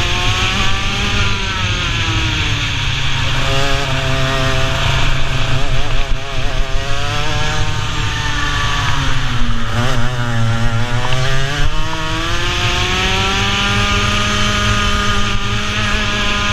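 Racing kart engine heard from onboard, its pitch falling as the kart slows for a corner a couple of seconds in and again about ten seconds in, then climbing back as it accelerates and holding high near the end.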